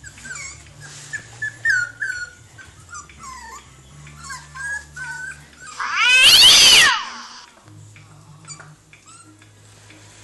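Five-and-a-half-week-old puppies whining and squeaking, a quick run of short, high whimpers one after another. About six seconds in, one loud, drawn-out squeal lasts about a second, then only faint whimpers.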